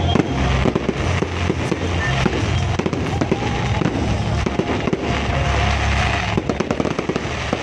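Fireworks display: a rapid, near-continuous barrage of aerial shells bursting and crackling, with deep booming underneath.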